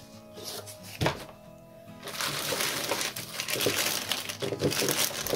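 Crinkling of a clear plastic zip bag full of washi tape rolls being handled and pulled open, starting about two seconds in after a single sharp click, over background music.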